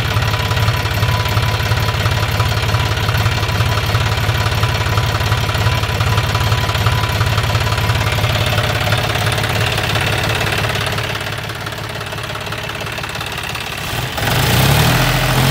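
Diesel tractor engine chugging steadily at idle, with an even, fast knock. About a second before the end the engine note changes, lower and louder.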